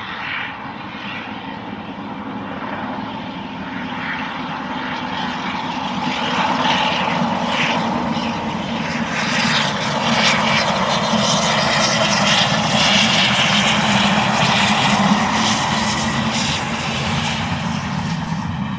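LMS Black Five 4-6-0 steam locomotive running light at speed, its steady exhaust and running rumble growing louder as it draws nearer, loudest about two-thirds in and easing slightly near the end.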